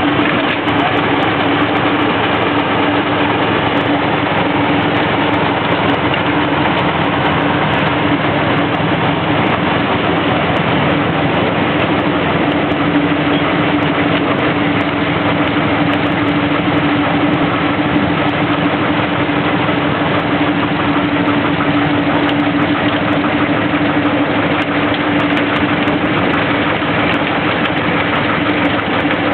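Small narrow-gauge diesel locomotive's engine running steadily at low revs, an even hum with one strong steady tone, as the locomotive creeps along the track.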